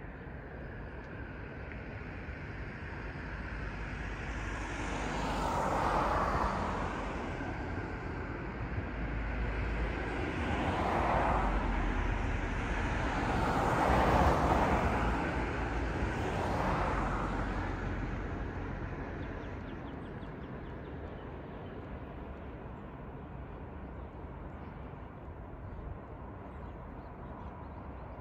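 Passing traffic outdoors: the noise of vehicles going by swells and fades about four times, then settles into a quieter, steady background hum for the last third.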